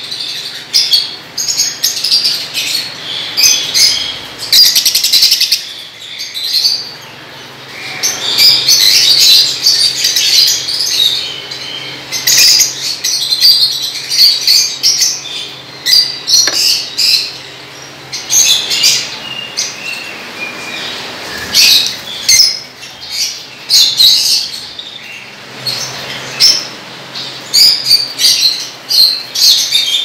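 A cage full of lovebirds chattering: a dense run of shrill chirps and squeaks coming in bursts with short lulls between.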